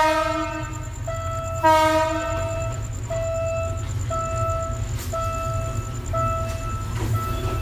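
Diesel locomotive DEL 917 sounding its horn: one loud blast ending just under a second in and a second, shorter blast about two seconds in, over the low rumble of its engine. Through it a level-crossing warning signal beeps about once a second.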